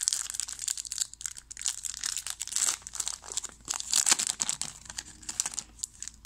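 A trading-card pack wrapper being torn open and crinkled by hand, a dense crackling that stops near the end.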